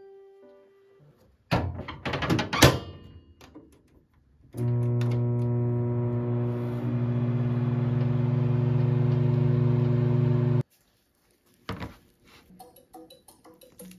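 A dish set into a microwave oven and its door shut with a few knocks and clatters. About four and a half seconds in, the microwave runs with a loud, steady electric hum for about six seconds and then cuts off suddenly. A single click follows.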